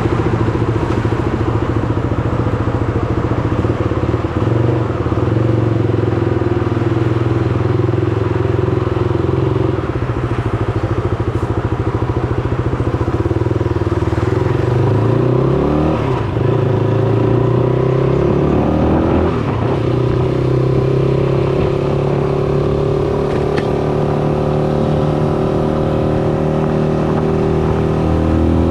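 Shineray SBM 250S motorcycle engine running while riding. The engine note drops twice, about halfway through and again a few seconds later, then climbs back up as the bike accelerates.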